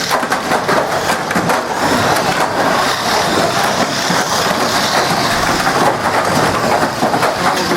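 Model banger cars racing on the track: a dense, steady clatter of many small knocks and rattles over a continuous hiss of running cars.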